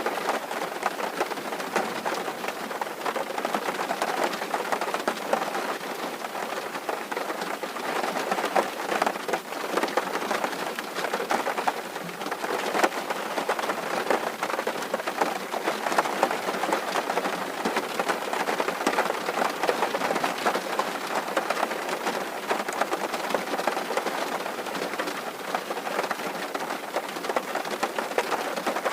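Steady rain drumming on a tin roof, a dense patter of many small drop impacts.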